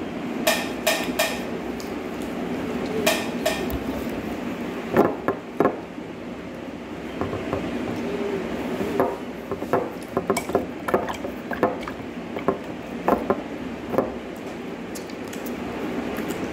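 Scattered clinks, taps and knocks of things being handled on a table, a few of the early ones short and ringing, over a steady background hum.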